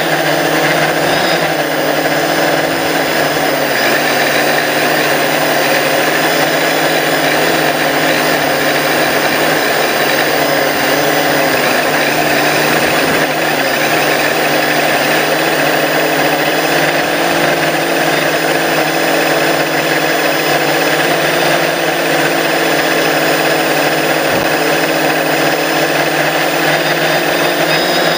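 A drone's motors and propellers running steadily, heard through the onboard camera's microphone as a loud, constant whirring drone whose pitch wavers only slightly.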